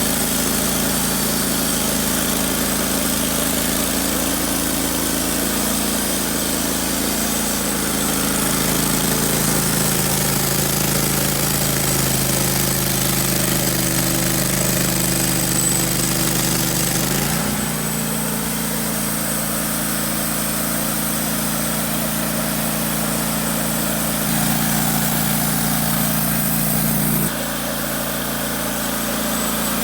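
Wood-Mizer LT15 Wide portable sawmill's engine running steadily as the mill saws an oak log. The engine note shifts and drops a little about two thirds of the way through, and steps down again near the end.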